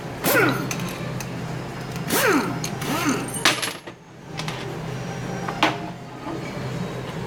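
Metal engine parts (pistons and connecting-rod bearing shells) being picked up and set down on a workbench. There are several sharp clicks and knocks, a few short squeaky scrapes that fall in pitch, and a steady low hum underneath.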